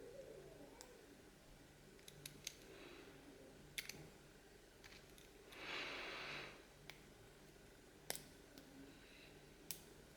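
Faint, scattered clicks from a Kaba 6062 padlock being picked under tension: pins setting one by one, about seven small clicks spread over the stretch. A soft hiss lasting about a second comes near the middle.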